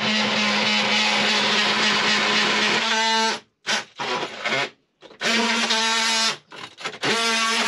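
A handheld power tool's electric motor running with a steady hum, in four bursts of about one to three seconds, each cut off suddenly as the trigger is released.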